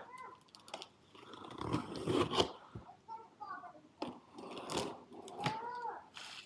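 Cardboard box and packaging of a pressure washer being opened and handled: irregular crinkling, crunching and tearing with scattered clicks and a few short squeaks.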